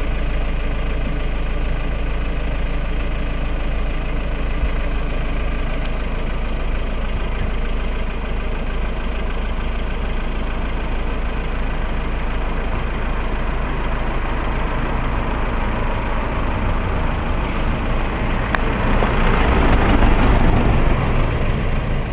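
A motor vehicle's engine idling steadily, with a constant low hum. It grows louder and rougher for a couple of seconds near the end.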